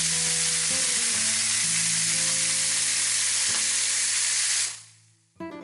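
Chicken pieces searing in a stainless steel frying pan, sizzling steadily and loudly. The sizzle fades out about five seconds in.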